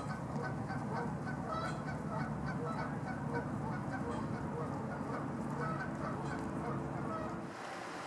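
Canada geese honking over and over in short calls, over a low steady background rumble; the calls cut off near the end.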